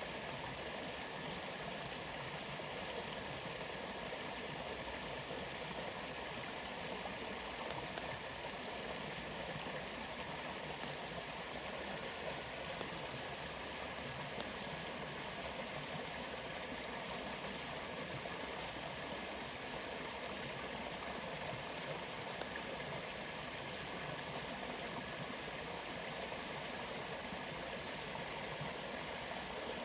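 Waterfall water rushing steadily, an even unbroken roar of falling and flowing water.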